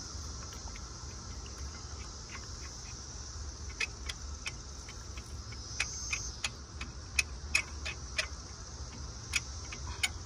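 Scattered sharp metallic clicks, starting about four seconds in and coming a few a second, as a 10 mm ground bolt is threaded and worked by hand. A steady low hum runs underneath.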